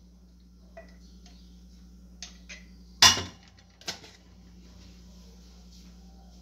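Kitchenware and a glass jar being handled on a countertop: a few light clinks, then a sharp knock about three seconds in and a smaller one shortly after.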